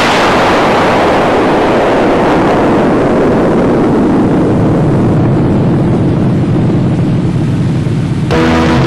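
A long, loud rushing rumble that starts suddenly. Its hiss fades and the rumble sinks lower over several seconds, then it cuts off abruptly near the end as music comes back in.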